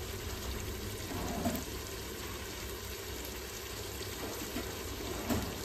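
Mutton frying in oil in an open pressure cooker, a steady gentle sizzle, with a low hum underneath.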